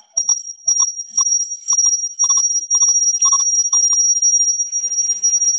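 A loud, steady high-pitched electronic whine, with irregular short clicks and blips over it, a few each second.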